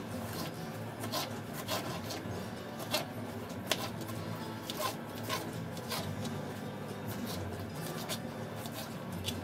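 Chef's knife chopping green bell pepper on a plastic cutting board: irregular sharp taps of the blade hitting the board, over quiet background music.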